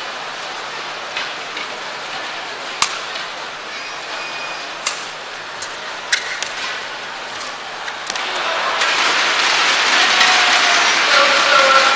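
Badminton rally in a packed arena: sharp racket strikes on the shuttlecock every second or two over a steady crowd hum. From about eight seconds in, the crowd cheers and the noise grows louder and stays up.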